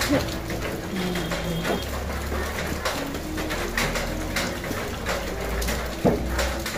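Clothing rustling and rubbing against the phone's microphone, a run of short crackles over a low handling rumble.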